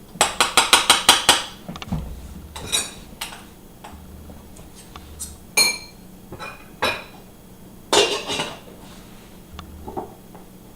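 A spoon clinking and scraping against a pot and a dish as cooked rice is served: a quick run of about a dozen taps at the start, then scattered clinks, one of them ringing, and another short clatter near the end.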